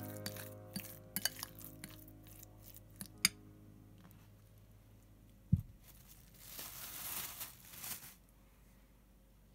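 Kitchen handling sounds: scattered light clicks and clinks of utensils and dishes, a sharper knock about five and a half seconds in, then a soft rustling scrape lasting about two seconds.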